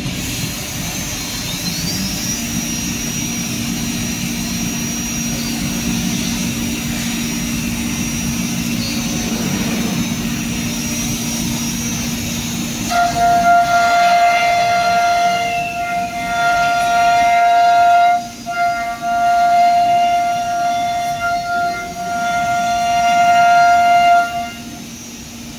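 CNC router spindle and bit machining a wooden door panel: a steady machine hum and whine, then about 13 seconds in a loud, high-pitched cutting scream starts as the bit bites into the board, dipping briefly twice.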